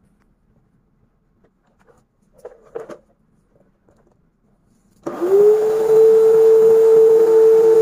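Canister vacuum cleaner switched on about five seconds in: the motor whirs up in pitch and settles into a loud, steady run. A few faint knocks of the hose and wand being handled come before it.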